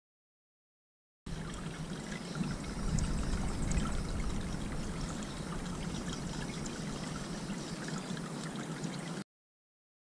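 Water trickling and splashing steadily, starting about a second in and cutting off suddenly near the end.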